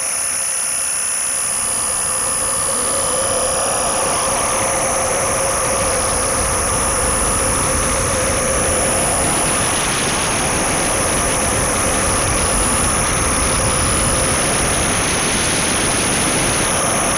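Dense, steady electronic noise drone played live from laptops, thick from deep rumble up to hiss, with a thin high whistle and a humming band in the middle.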